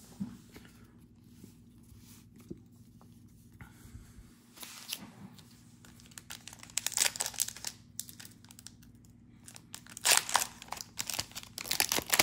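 Plastic trading-card pack wrapper being torn open and crinkled in two spells, about halfway through and near the end, after a few light handling clicks.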